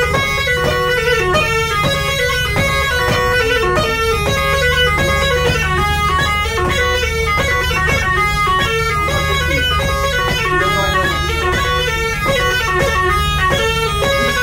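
Tulum (Turkish bagpipe) playing a fast, lively melody of quick notes over a steady beat.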